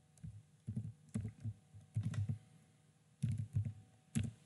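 Computer keyboard typing a terminal command, keystrokes coming in several short bursts with brief pauses between them.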